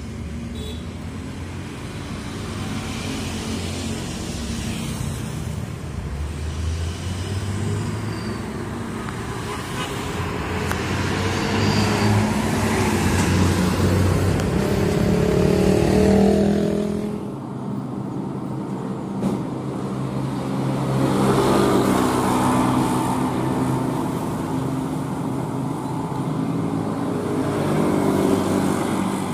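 Vehicle engine and road noise while driving, the engine note climbing and falling several times as the vehicle speeds up and slows down.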